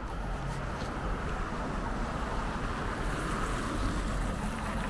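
Road traffic going by: a steady rush of car tyres and engines that swells about three seconds in as a car passes, over a low rumble.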